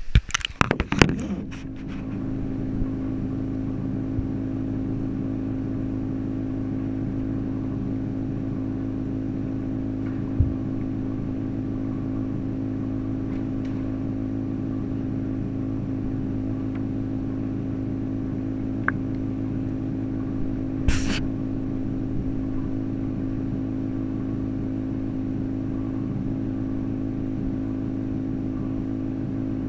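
Water splashing and knocking as a camera is dipped into a koi tank, then a steady low machine hum heard through the submerged camera, with a few faint clicks.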